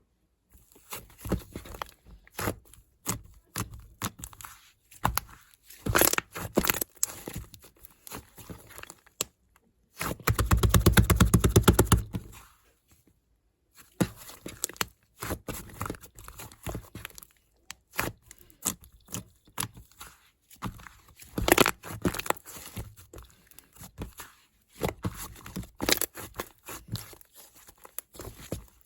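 Slime being squeezed, stretched and poked by hand: irregular sticky clicks and crackles, with a fast, dense run of clicks lasting about two seconds, beginning about ten seconds in.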